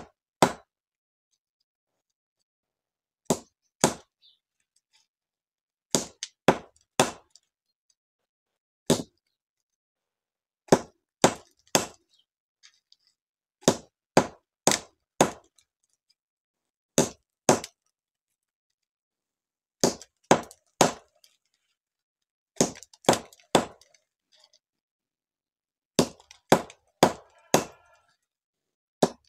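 Hard Syrian juniper (andız) stones being cracked with repeated sharp blows, the knocks coming in clusters of two to four with short pauses between. The stones are very hard to crack.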